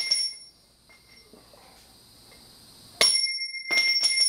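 A short piece of steel shotgun barrel dropped onto a concrete floor, clanging and ringing like a bell. Near the start the ring of the previous drop dies away. About three seconds in, it strikes again with a loud ringing clang and bounces a few times.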